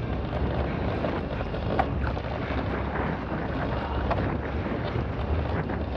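Wind buffeting the microphone aboard a boat at sea: a steady, rumbling rush of noise, heaviest in the low end.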